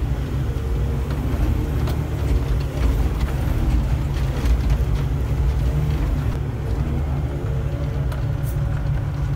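SDLG excavator's diesel engine running steadily, heard from the operator's seat.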